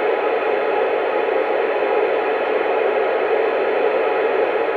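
Steady hiss of static from an Alinco DX-SR8 transceiver on 27 MHz FM CB with the squelch open: an empty channel, no station answering the call.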